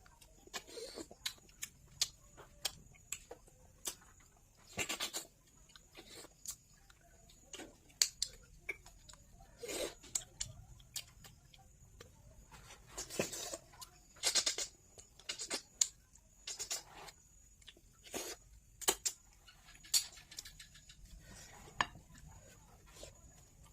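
Eating sounds from a meal of goat-meat bhuna: irregular chewing and mouth sounds with clicks of food and fingers on a plate, loudest about five seconds in, around thirteen to fourteen seconds, and near nineteen seconds.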